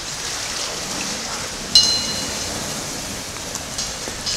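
Steady hiss of water moving under the pier deck, with one sharp ringing ping about two seconds in that fades within half a second.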